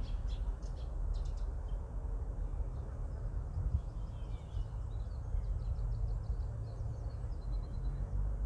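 Outdoor ambience: a steady low rumble with small birds chirping now and then, including a quick run of short high notes about five to seven seconds in.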